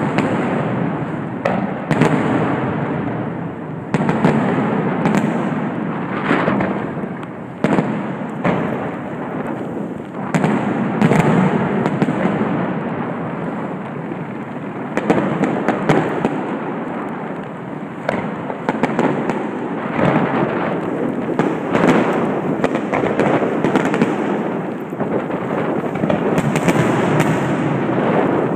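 Aerial firework shells bursting in a continuous barrage, like a finale: sharp bangs every second or two over a constant rumble of overlapping explosions.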